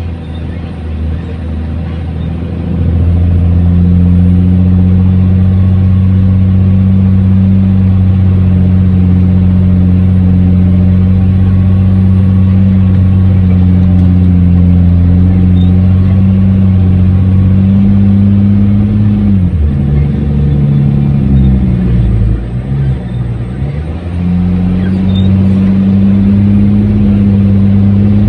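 Dump truck engine held at high revs, running hard and steady; about two-thirds of the way through the revs fall and waver for a few seconds, then climb back.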